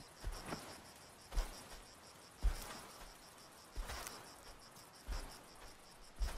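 African elephant's footsteps on dry grass and brush, a soft thud about once a second, over steady high chirping of insects.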